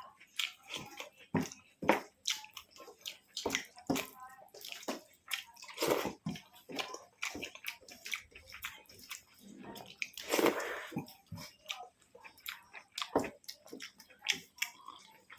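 Close-up eating sounds of a rice and vegetable curry meal: irregular wet smacks, squelches and chewing, with a longer wet rustle about ten seconds in.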